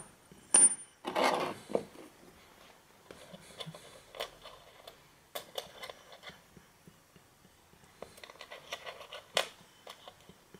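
Small metal brake-caliper parts handled on a wooden tabletop: scattered clicks and clinks, with a sharp metallic ping and brief ring about half a second in, followed by a short scrape.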